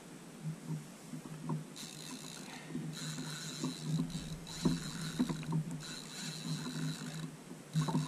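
Fishing reel whirring in about five spells of a second or so, each with a thin high whine, while a big hooked fish pulls on a hard-bent rod.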